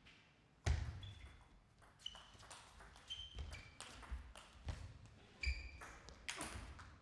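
Table tennis rally: the celluloid ball cracking off the bats and clicking on the table, one or two hits a second, with short squeaks of shoes on the hall floor between strokes.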